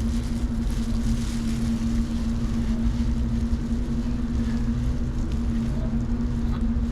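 A steady low machine hum: a constant droning tone over a low rumble, unchanging throughout.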